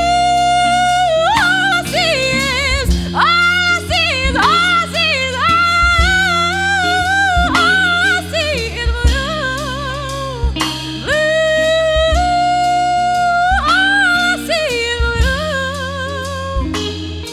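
A woman singing long held notes with vibrato, backed by electric bass, drum kit and electric guitar played live.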